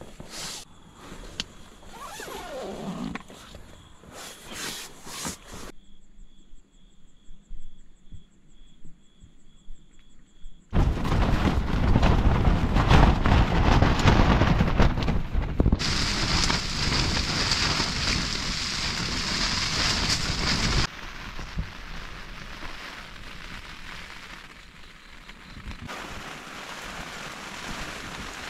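Strong wind gusting against a tent, the fabric flapping and the gusts rumbling on the microphone for about ten seconds in the middle, then easing to a steady hiss of rain on the tent near the end. In the first few seconds, hands rustle an inflated sleeping mat.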